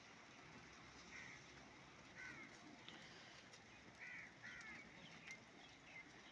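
Faint, steady wind hiss from a dust storm, with several short bird calls cutting through it, about four in all and two close together a little past the middle.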